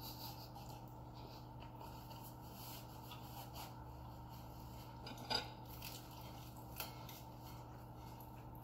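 Low steady room hum with faint scattered clicks and clinks of a spoon and dishes as food is picked at on the table, one slightly louder knock about five seconds in.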